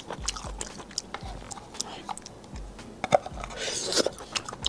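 Close-miked biting and chewing of tender lobster meat, with many short wet mouth clicks and snaps. A brief sucking slurp comes about three and a half seconds in, as the meat is drawn from the shell.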